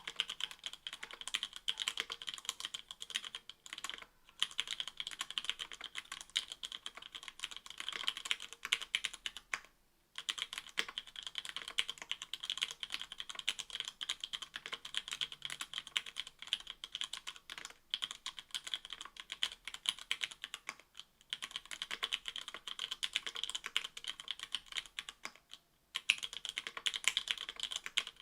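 Continuous typing on an Octagon V3 mechanical keyboard with stock 60 g Cherry MX Black linear switches in an aluminium plate and GMK Olivia++ keycaps: a dense, rapid run of keystroke clacks. The run breaks off for a moment every few seconds.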